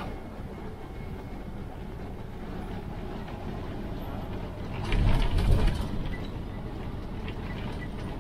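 Cabin noise inside a moving bus: steady engine and road rumble. About five seconds in, a loud burst of rattling and knocking from the bus body.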